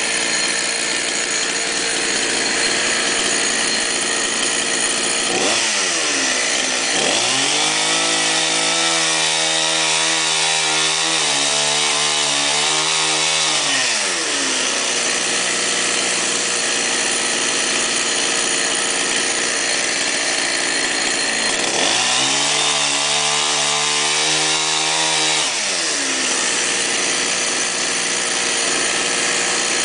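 Two-stroke petrol chainsaw cutting guava tree limbs at full throttle. Twice it drops back to a low idle for several seconds, about six seconds in and again about twenty-two seconds in, then revs back up.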